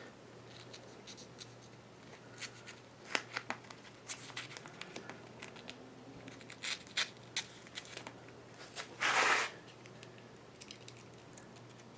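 Masking tape being pulled and torn and pressed down by hand, with light crinkling and scattered small clicks, and one louder rasp about nine seconds in.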